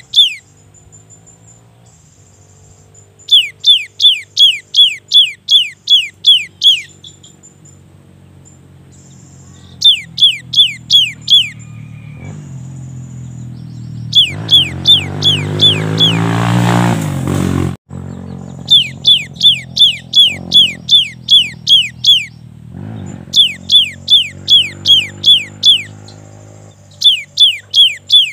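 Cinereous tit singing its 'wucit-wucit' song: phrases of six to ten sharp, down-sweeping whistled notes at about three a second, repeated after short pauses. Under it runs a steady low hum, and midway a rumble builds up and then cuts off suddenly.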